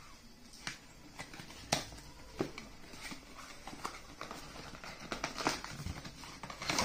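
A cardboard camera retail box being opened by hand: a seal strip peeled off and the outer sleeve slid off, with scattered light clicks, taps and rustles of card and plastic.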